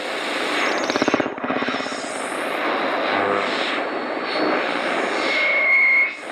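HF amateur radio receiver audio through speakers: band static and hiss, with a rapid run of pulses about a second in and a steady tone near the end, typical of digital-mode and CW signals on the band.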